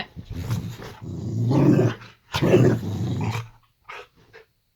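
Boxer dog growling in two long stretches with a short break between them, then a couple of brief faint sounds near the end.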